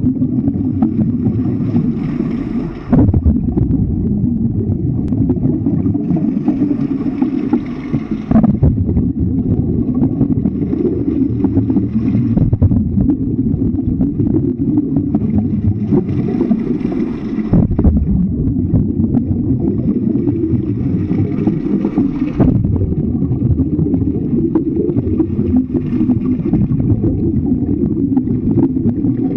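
Underwater sound of a swimming pool picked up by a camera's microphone: a steady low rumble, with a hissing surge every four to five seconds that lasts a second or two.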